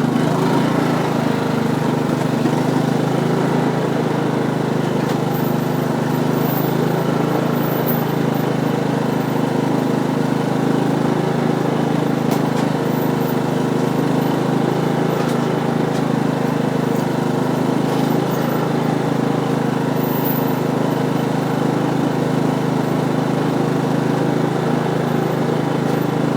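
Small single-cylinder engine of a riding lawn mower idling steadily at an even pitch, with a few faint clicks.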